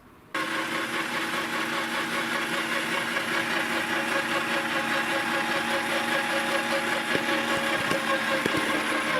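Electric meat grinder switched on about half a second in, its motor then running steadily with a rough grinding texture.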